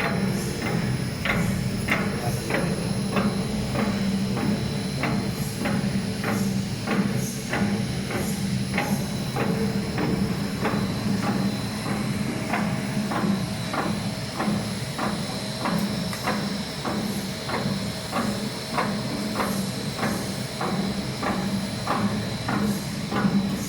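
Dog treat extrusion machine running: a steady mechanical hum with a sharp, regular click about twice a second.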